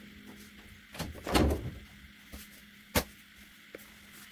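A door being opened and shut: a knock, then a rustling thump about a second and a half in, and a sharp knock near three seconds, over a steady low hum.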